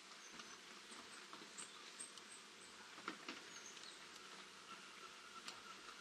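Light rain falling on garden foliage, a faint steady hiss dotted with small drip taps, the sharpest about three seconds in. A few faint, very high, short chirps from small birds.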